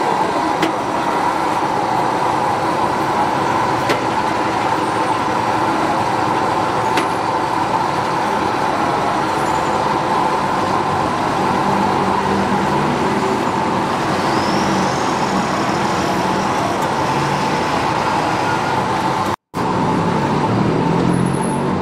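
Steady street traffic noise, with the hum of vehicle engines swelling about halfway through. The sound cuts out for an instant near the end.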